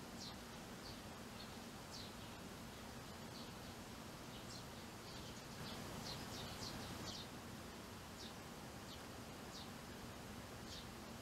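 Eurasian tree sparrows giving short, high chirps, scattered about once a second with a quicker run in the middle. A steady low hum and outdoor background noise run underneath.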